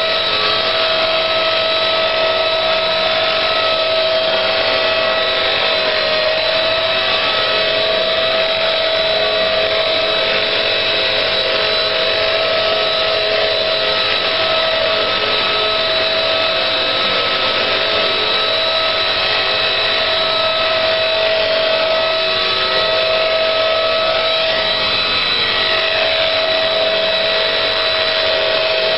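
Small electric RC helicopter's motor and rotor running with a steady high whine, dipping slightly in pitch twice.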